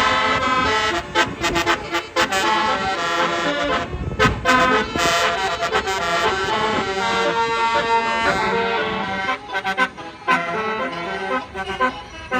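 Tour bus's basuri telolet horn playing a song: several horn tones shifting pitch in a melody, with a few short breaks.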